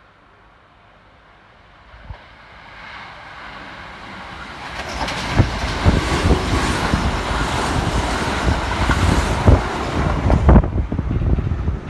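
Kintetsu 1230 series and 2800 series electric multiple units, coupled, passing through at speed without stopping. The rumble builds as the train approaches and is loud for about five seconds, with repeated clacks of the wheels over rail joints. It falls away quickly as the last car goes by, near the end.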